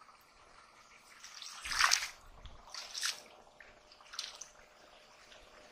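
Hands splashing and sloshing through shallow muddy water while groping for fish. Three splashes come about a second apart, the first and loudest about two seconds in.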